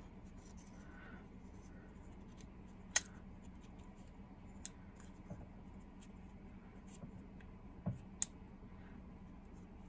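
Faint handling of an HO-scale model locomotive: a few sharp small clicks and light scrapes as a thin wire handrail is bent and tucked into the plastic body shell, loudest click about three seconds in, over a steady low hum.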